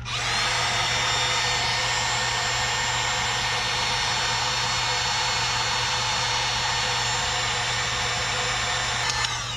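Handheld electric heat gun blowing steadily with a fan whine, heating heat-shrink tubing over a soldered wire joint. It is switched off about nine seconds in, and the whine falls away as the fan spins down.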